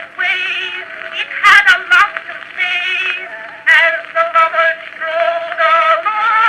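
Early acoustic recording played back from an Edison Blue Amberol cylinder: a woman sings a popular song with wide vibrato over instrumental accompaniment. The sound is thin and cut off in the highs, with a few surface clicks.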